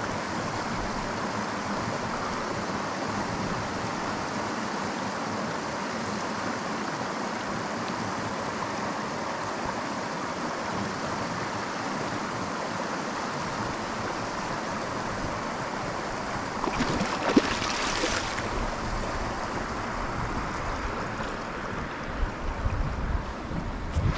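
Steady rush of a shallow creek flowing over a riffle. A short louder swish comes a little after the middle, and a few low bumps of wind or handling on the microphone come near the end.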